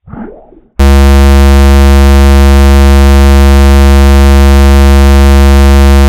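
A harsh electronic buzzing tone at full volume: one steady low pitch with many overtones, starting abruptly about a second in and holding unchanged.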